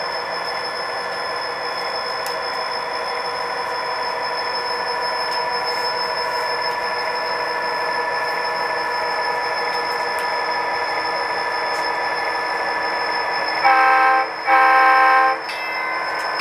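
HO-scale model diesel locomotive running with its simulated diesel engine sound, a steady hum with a thin high whine over it. Near the end it sounds two short horn blasts.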